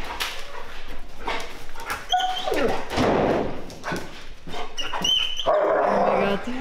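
German Shepherd-type dogs whining and yipping excitedly, with short high whines about two seconds in and again about five seconds in, amid scuffling.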